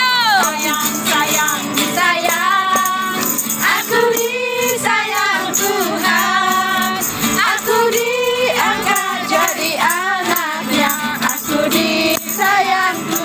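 Several women singing a lively worship song together over a strummed acoustic guitar, with hand claps.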